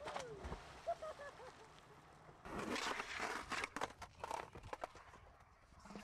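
Skateboard grinding along a concrete ledge, a scraping run of about a second, followed by a few knocks. Before it come a short rising-and-falling tone and a few faint chirps.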